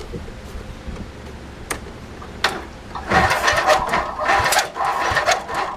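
A few light clicks, then about three seconds in the starter cranks the 18 hp Briggs & Stratton twin-cylinder lawn tractor engine in a rapid, uneven churn, with the battery low.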